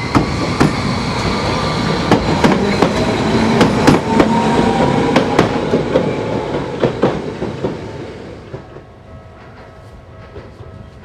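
A Tokyu Setagaya Line 300 series two-car tram pulls away and passes close by. Its wheels clack sharply over the rail joints and its electric motors whine. The sound fades away about eight seconds in.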